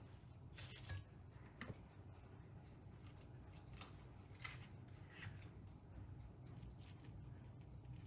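Near silence with a few faint rustles and light taps as curly lettuce leaves are set on ceramic plates, then a spatula scoops scrambled egg from a frying pan near the end.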